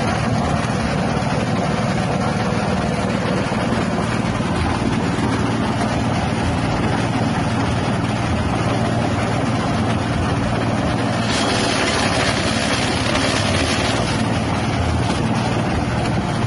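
A 6.5 HP petrol engine runs steadily, driving a grass chopper machine. About eleven seconds in, a brighter hissing noise is added on top.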